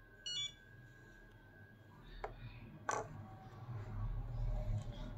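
FlySky FS-i6s radio control transmitter giving a short electronic beep as its touchscreen is pressed. It is followed by two sharp clicks of handling on the transmitter's plastic case about two and three seconds in, over a low handling rumble.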